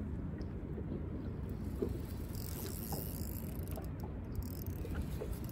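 Steady low rumble of wind buffeting the microphone on open water, with a few faint light ticks.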